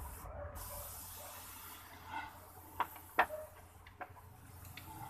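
Wiring being handled under a van's dashboard: faint rustling, then three sharp clicks within about a second, starting nearly three seconds in.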